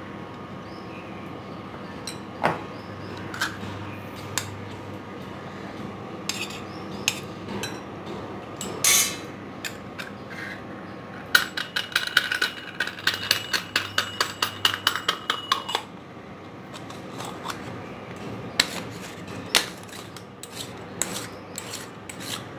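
Clinks, scrapes and knocks of metal against metal and glass as a stainless steel idiyappam press is filled with chocolate rice-flour dough. Near the middle comes a fast, even run of metallic clicks, about five a second, lasting some four seconds.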